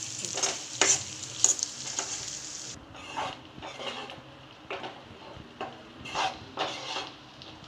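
Metal spatula stirring and scraping sliced shallots, dried red chillies and curry leaves as they sauté in a frying pan: a steady sizzle with irregular scraping strokes against the pan.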